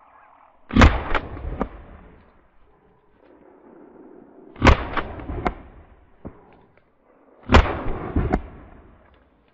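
Three shotgun shots fired about three to four seconds apart, each followed within a second by two fainter sharp cracks.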